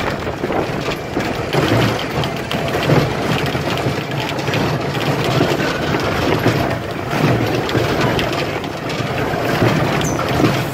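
Mine train roller coaster running along its steel track: a steady rumble of wheels with fine clatter through the ride.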